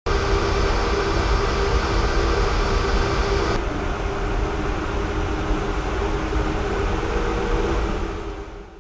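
Fan motor running with a steady rushing noise and a low hum. The higher hiss drops away about a third of the way through, and the sound fades out near the end.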